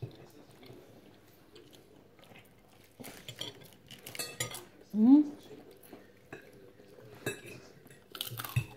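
Plates and cutlery clinking at a dining table as food is reached for, with a short rising voice sound about five seconds in. Chewing on crispy pata can be heard near the end.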